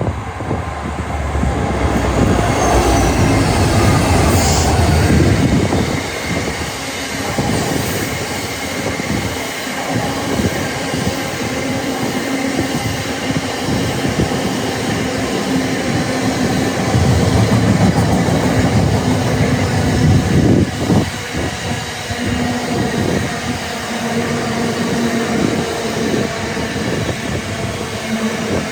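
A train passing through the station without stopping: a continuous rumble of wheels on rail with some wheel clicks, swelling loudest twice, in the first few seconds and again around two-thirds of the way through.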